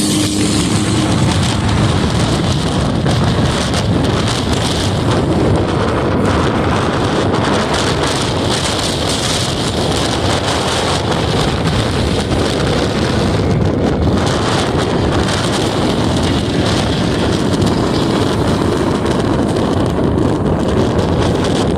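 Volkswagen Gol 1600 race car running at speed, its engine sound buried under steady, heavy wind noise on the microphone.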